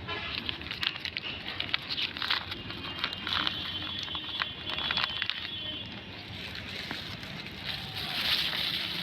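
Plastic bag and plastic litter crinkling and rustling as rubbish is stuffed into the bag: a quick run of crackles, easing off about six seconds in, with another rustle near the end.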